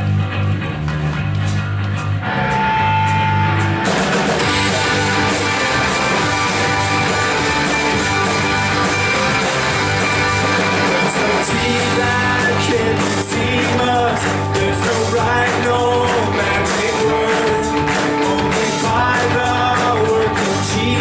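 Live church worship band playing an instrumental passage with bass and electric guitar. The full band, drums and cymbals included, comes in about four seconds in.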